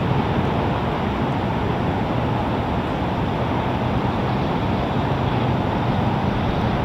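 Steady rushing background noise, unchanging throughout, with no distinct knocks or ball-in-glove pops standing out.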